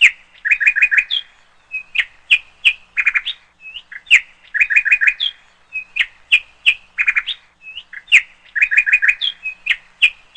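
Small bird chirping. A sharp falling call is followed by a run of four quick chirps, and the same phrase repeats about every four seconds.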